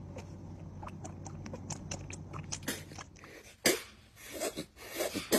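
A cat sucking milk from a baby bottle, with quick wet clicking smacks of about five a second. About three and a half seconds in, a kitten gives several short, loud cries.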